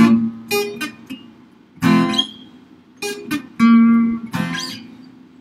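Cutaway acoustic guitar with a few chords strummed one at a time, each left to ring and die away before the next.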